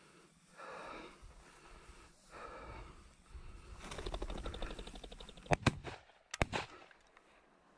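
Shotgun fired twice about a second apart at a flushed pheasant, the reports sharp and short, preceded by rustling through dry grass.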